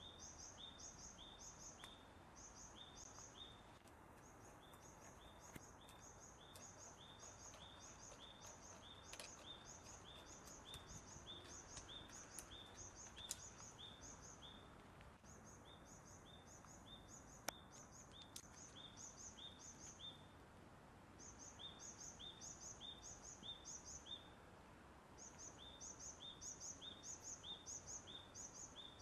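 Faint high chirping calls, about three a second, repeated in runs of several seconds with short pauses between, over a quiet background, with a couple of faint clicks.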